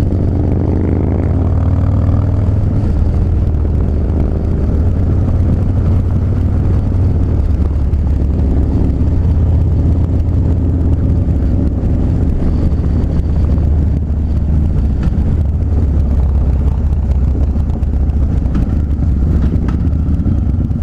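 Harley-Davidson Dyna Street Bob's V-twin engine running at speed under heavy wind noise on the microphone. Its pitch rises during the first couple of seconds as it accelerates, then settles into a steady run.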